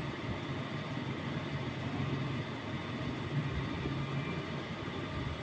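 Steady low rumble of background noise with a faint hum, with no distinct events.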